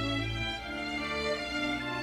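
Background music: slow bowed strings, led by violin, playing sustained notes.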